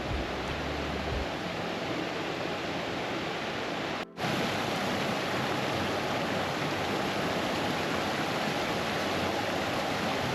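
Moorland stream rushing over rocks: a steady roar of running water, with a brief dropout about four seconds in, after which it is a little louder.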